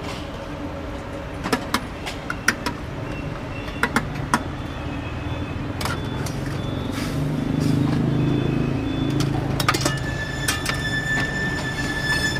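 Scattered sharp clinks of metal ladles, strainers and bowls over a low rumble of passing road traffic, which swells through the middle. Near the end a high steady tone sounds for about two seconds.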